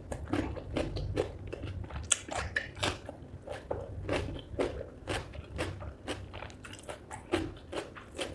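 Close-miked chewing and crunching of spicy chicken feet curry with rice: a dense, irregular run of crunches and wet mouth clicks, several a second.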